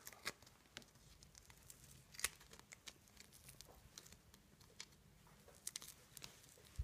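Faint handling sounds of hands unwrapping a small paracord survival pod: scattered light ticks and crinkles of cord and duct tape being pulled and peeled, with a few sharper clicks a little after the start, about two seconds in and near the end.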